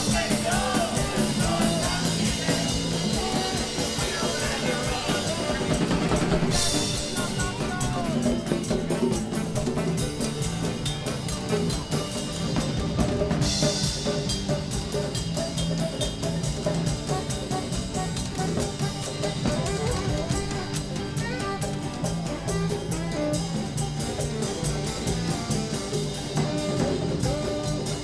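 Live band jamming: a drum kit keeps a steady beat under bass, guitars and saxophone. Cymbal crashes come at the start, about six and a half seconds in, and about thirteen seconds in.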